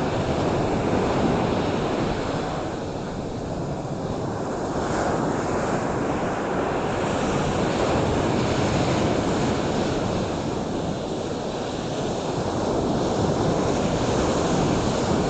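Ocean surf: a continuous rushing wash of waves that eases off slightly twice and swells back.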